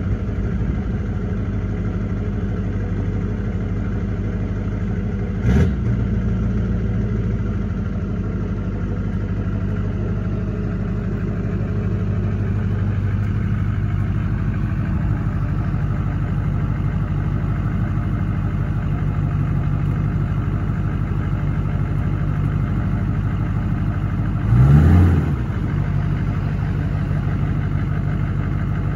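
Vehicle engine idling steadily, with two short revs: one about five seconds in and a longer one near the end.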